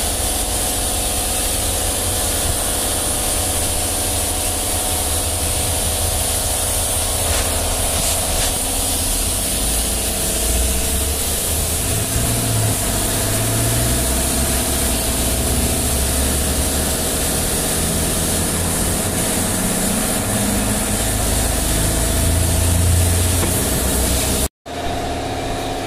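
Compressed air hissing steadily through a hose into a large tractor inner tube, inflating it so the puncture can be found, over a steady machine hum. The sound breaks off for a moment near the end.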